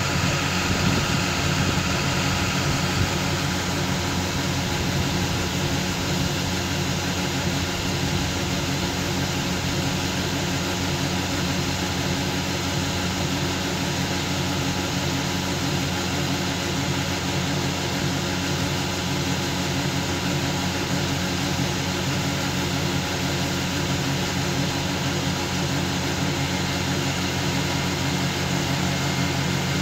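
A John Deere combine's diesel engine runs steadily with the unloading auger engaged, augering shelled corn out of the grain tank and into a steel grain-truck box.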